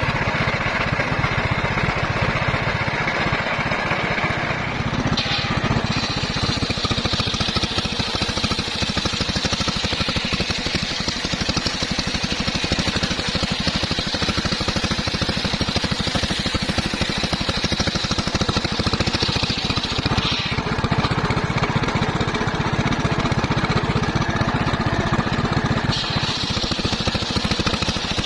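Homemade band sawmill running steadily on its engine. A higher sawing sound joins it from about five seconds in until about twenty seconds, and again near the end, as the blade cuts through teak.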